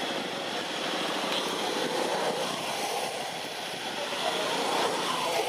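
Steady background noise, like a distant engine, with faint wavering voices or calls over it in the middle and again near the end.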